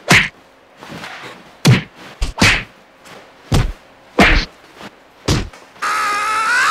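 A string of soft, heavy whacks and thuds, about seven over five seconds, as a large stuffed red fabric bag is swung and hit. Near the end comes a loud, drawn-out, high-pitched wail that wavers and then slides down in pitch.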